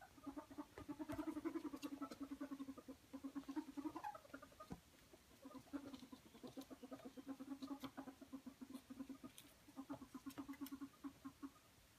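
Ferrets dooking: rapid, low chuckling clucks in long runs with short pauses, the sound ferrets make when excited at play, with a few sharp clicks mixed in.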